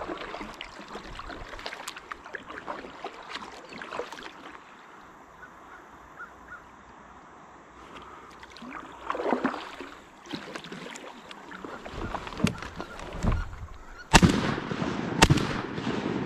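Quiet paddling and water sounds on a river, then ducks calling as they flush, followed near the end by two shotgun shots about a second apart at jumping wood ducks.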